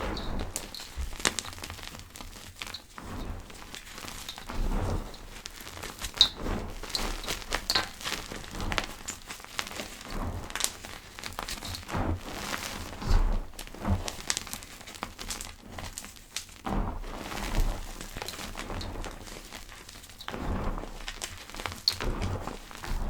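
Soft powder being pressed and crushed by hand, giving a continuous run of irregular soft crackles and crunches with a few louder crunches.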